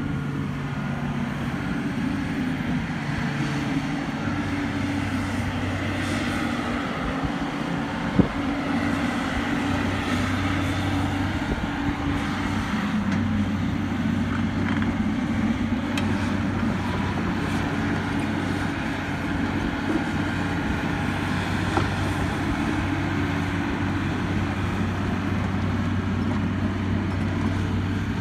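John Deere 250G excavator's diesel engine running steadily, its hum shifting in pitch now and then. A single sharp knock comes about eight seconds in.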